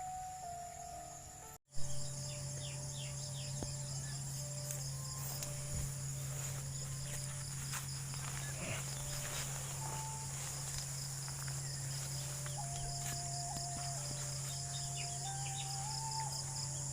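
Music cuts off about a second and a half in. After that, a chorus of insects, crickets among them, trills steadily at a high pitch over a low steady hum.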